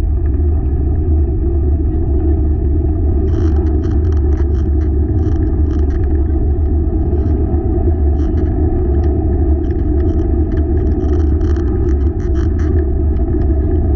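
Dog-drawn wheeled rig rolling fast along a trail: a loud, steady rumble. Bursts of short, crisp ticks come in from about three seconds in until near the end.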